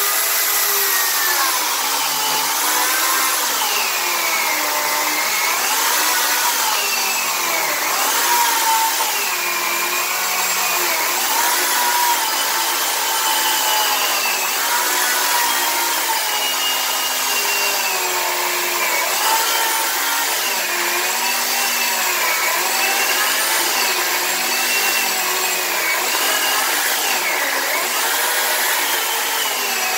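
Oregon CS1500 corded electric chainsaw cutting through a thick log, the motor running without a break. Its pitch dips and rises every second or two as the chain bogs into the wood and frees up again.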